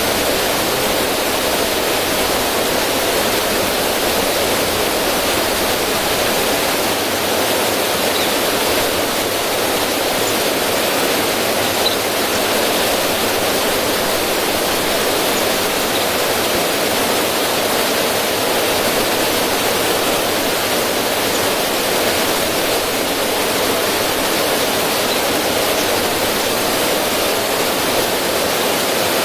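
River current rushing steadily over rocks through a small cascade, a continuous even roar of falling, splashing water.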